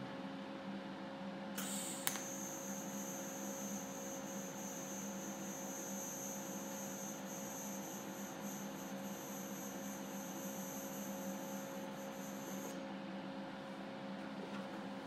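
TIG welding arc on stainless steel, a fusion weld with no filler rod: it strikes about a second and a half in with a short crackle and a sharp snap, then holds a steady high-pitched hiss for about ten seconds before cutting off near the end. A steady electrical hum runs underneath.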